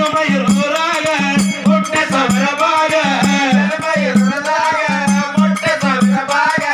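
A man sings a Kannada dollu pada folk song through a microphone and PA. Behind him is a steady, fast rhythm of rattling percussion and regular low drum-like pulses.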